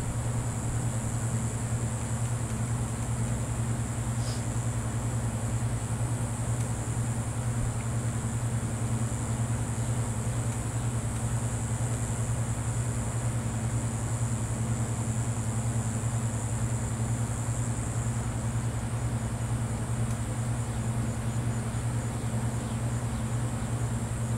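Steady low machine hum, unchanging throughout, with a constant high-pitched buzz above it.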